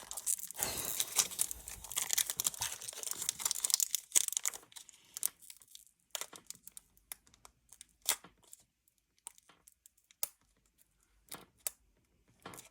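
Foil wrapper of a Pokémon card booster pack being torn and crinkled as it is worked open, dense crackling for the first four seconds or so, then scattered crinkles and clicks.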